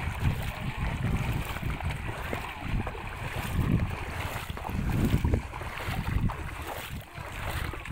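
Wind buffeting the microphone in uneven gusts over a rush of moving river water, with a few faint knocks.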